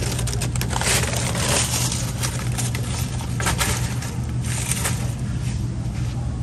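Shopping cart clattering and rattling as it is loaded with a plastic-wrapped case of bottled water and pushed along, with irregular crackles of the plastic wrap over a steady low hum.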